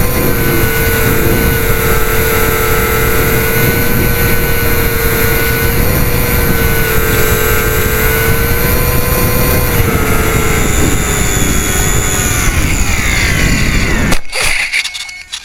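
The twin electric motors and propellers of a Parkzone Micro Mosquito model plane, heard from on board, make a steady whine. It sags in pitch after about ten seconds as the plane is throttled back. A brief clatter comes about a second before the end, and then the motor sound drops away.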